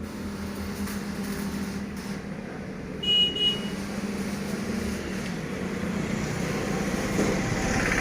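Mini tractor engine running steadily, with a brief high-pitched tone about three seconds in.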